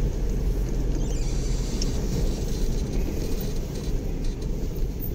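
Steady low rumble of a car driving.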